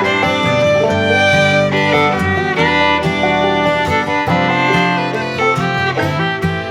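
Instrumental background music with a melody of held notes that change pitch throughout.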